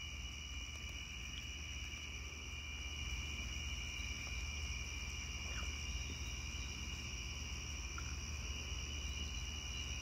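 Steady night chorus of crickets, a continuous high trilling at two pitches, over a low steady rumble.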